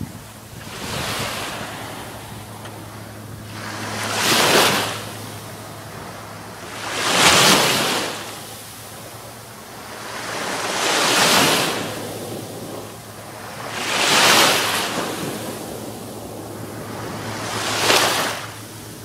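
Small waves breaking and washing up a pebble beach, six slow swells of surf each rising and falling over about a second, three to four seconds apart. Wind on the microphone underneath.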